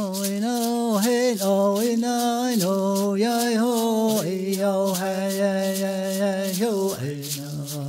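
A man chanting in long held notes, his pitch dipping briefly between them and settling lower near the end, over a rattle shaken in a steady beat.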